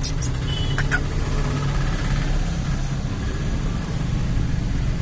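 Steady low rumble of a motor vehicle engine and road traffic, with a couple of brief high chirps within the first second.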